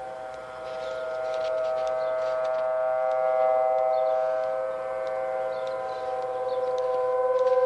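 Outdoor tornado warning sirens, a T-128 and a 1000T, sounding together on a steady test tone: a chord of several held pitches. The loudness swells and fades slowly, peaking about three seconds in, dipping near five to six seconds and rising again near the end.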